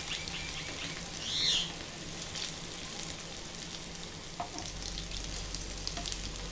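Bread rolls deep-frying in hot oil in a pan: a steady sizzle of bubbling oil. A short, high chirp rises and falls about one and a half seconds in.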